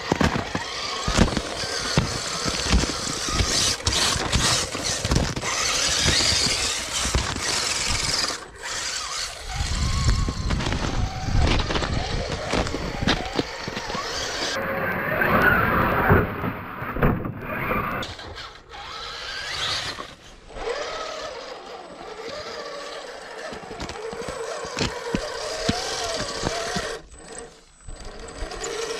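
Traxxas TRX-4 Sport RC crawler driving over crusted snow and ice: its electric motor and gears whining, which rises and falls with the throttle, over many crunching clicks from the tyres.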